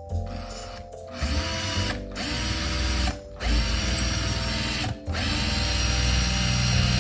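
Cordless electric drill-driver running in four bursts of one to two and a half seconds, each spinning up as it starts, with short pauses between them. Background music plays underneath.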